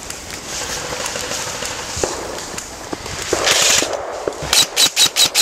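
Airsoft rifle firing a rapid string of shots, about six a second, starting about four and a half seconds in. It follows a scatter of faint clicks and a short rush of hiss.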